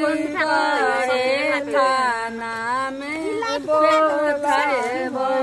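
Women singing a traditional wedding folk song together, unaccompanied, in long, wavering held notes.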